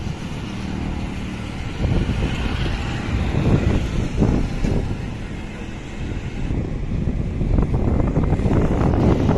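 Road traffic going by: a steady, noisy low rumble of passing vehicles that grows louder over the last few seconds.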